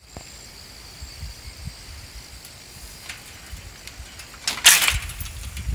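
Handling noise on a phone's microphone: low rumbling thumps, and a brief loud rustling hiss about four and a half seconds in.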